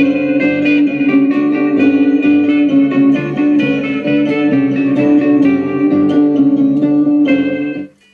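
Guitar music from a vinyl single playing on a restored 1960s Pye Black Box record player, the 'excellent sound' of the finished refurbishment. The music cuts out abruptly for a moment near the end.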